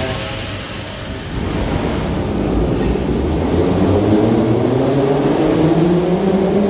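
Moscow Metro train pulling out of the station: a low rumble with an electric traction-motor whine that rises steadily in pitch as it accelerates, starting about a second and a half in.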